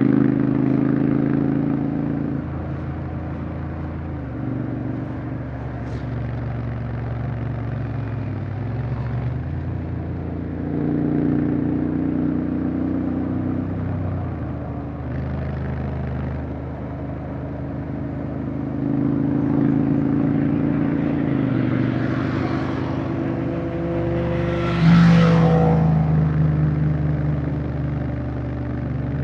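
Honda X-ADV 750's parallel-twin engine running under way, its pitch rising and falling as the throttle is opened and eased several times. A short, louder rush of noise comes near the end.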